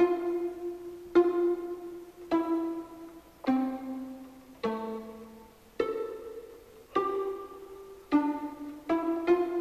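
Background music of single plucked string notes, about one a second, each ringing out and fading before the next, in a slow changing melody.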